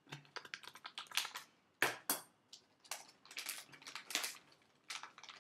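Scissors cutting open a thin clear plastic bag: the plastic crinkles and crackles in quick irregular bursts, with two louder crackles about two seconds in.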